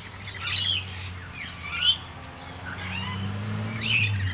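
Feeding birds squawking, a mixed flock of rainbow lorikeets and noisy miners: a few short, harsh, screechy calls about a second in, near two seconds and near the end, over a steady low hum.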